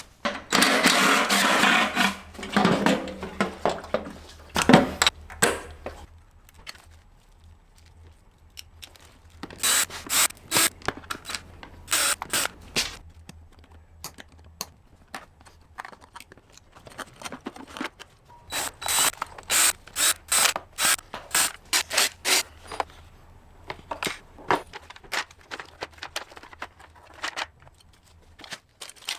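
Hand ratchet wrench clicking in two runs of quick back-and-forth strokes, working bolts loose during a motorcycle teardown. Metal parts clatter and scrape at the start, with a single knock about five seconds in.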